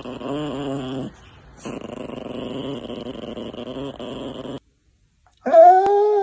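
Chihuahua growling, a low wavering rumble in two stretches broken by a short lull about a second in, stopping at about four and a half seconds. After a moment of silence, a loud, drawn-out pitched animal cry begins near the end.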